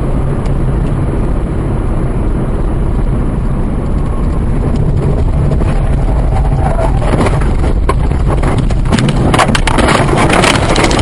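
A car driving, with a steady low road and engine rumble. From about seven seconds in, scraping knocks and clatter build up, dense and loud near the end as the car starts to crash.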